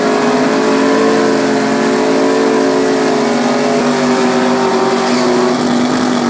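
A police-car drag racer doing a burnout: its engine is held at steady high revs while the rear tyres spin and smoke. The pitch sags slightly partway through.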